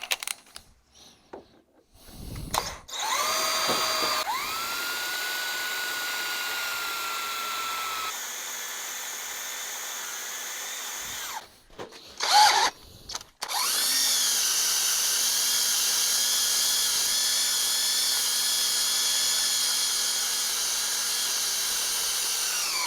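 Battery-powered drill boring a pilot hole through metal plate. It spins up to a steady whine that runs for about eight seconds, then stops briefly. A second steady run of about nine seconds follows and winds down near the end.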